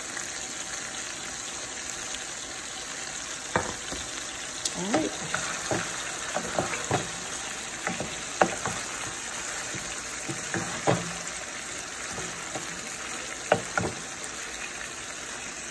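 Sliced chicken breast frying in oil in a skillet, a steady sizzle, with short knocks and scrapes of a spatula stirring the pieces against the pan from about three and a half seconds in.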